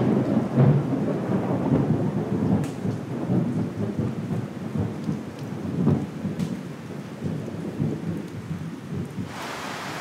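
Thunder rolling in a rainstorm: a long, low rumble that swells and slowly fades over heavy rain. Near the end the rumble gives way to the steady hiss of the rain alone.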